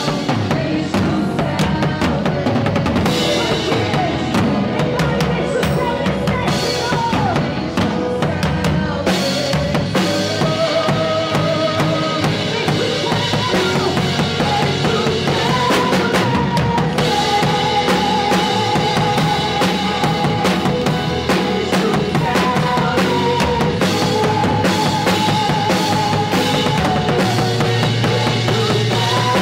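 Drum kit heard close up, with kick drum, snare and cymbals keeping a steady beat, under a live worship band with a singer carrying held, wavering melody notes.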